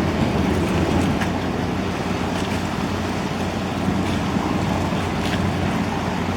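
Boat engine running steadily with a low hum, under a wash of water and wind noise.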